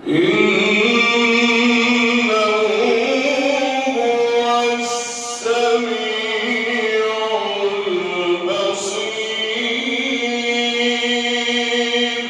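A male Quran reciter's voice drawing out long, ornamented melismatic notes in the chanted mujawwad style, the pitch winding slowly up and down, with a brief break about five seconds in.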